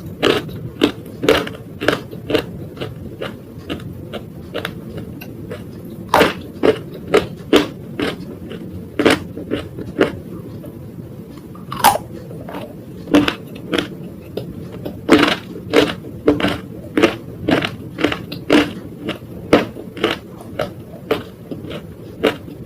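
Close-miked crunchy bites and chewing of a brittle grey material: sharp crunches come one or two a second, thinning out for a few seconds about three seconds in.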